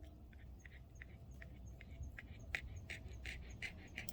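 A bird calling over and over in short, quick notes, about three a second, getting louder about halfway through, with faint high chirps and a low steady rumble underneath.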